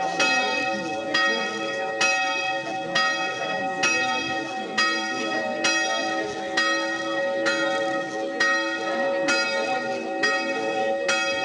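A bronze church bell dated 1400, said to have silver melted into its bronze, ringing with a steady stroke about once a second. Its hum carries on between the strokes.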